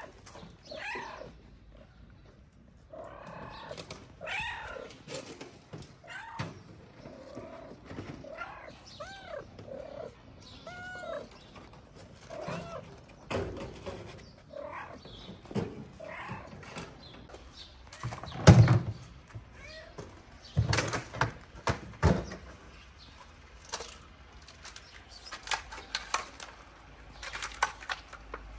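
Cats mewing: repeated short calls that rise and fall in pitch, with a few loud thumps partway through.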